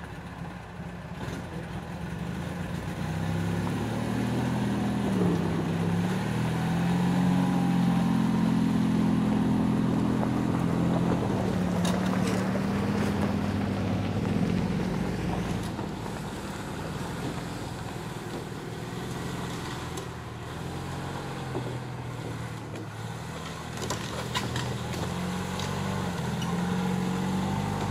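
Argo eight-wheeled ATV's engine running as it drives over gravel, its pitch rising and falling with the throttle. It swells in the first few seconds, eases off past the middle and picks up again near the end, with a few sharp clicks along the way.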